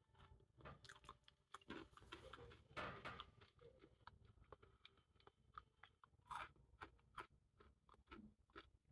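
Faint chewing of crunchy cookie M&Ms candies: irregular small crunches and crackles as the candy shells break.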